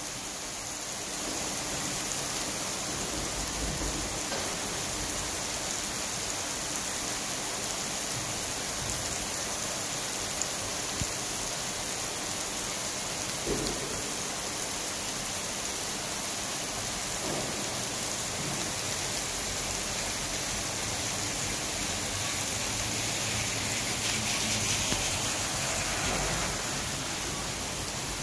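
Steady rain falling on a wet asphalt road and pavement, an even hiss of drops on the wet surface, with a couple of slightly louder drips partway through.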